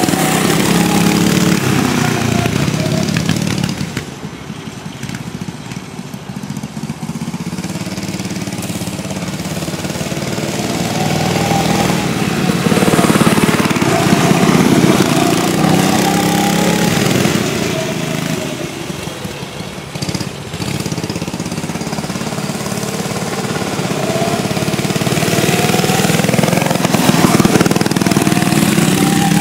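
Small single-cylinder mini bike engines revving as two bikes ride around, the pitch rising and falling with the throttle. They grow louder and fade as they pass, loudest about halfway through and again near the end.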